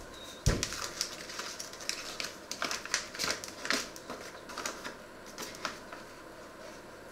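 A thump about half a second in, then a run of irregular crinkles and clicks: a paper bag being handled and a metal spoon scooping from it.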